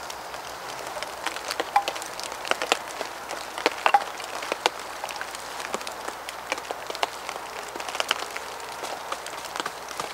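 Rain falling, with drops striking surfaces close by in many irregular ticks over a steady hiss.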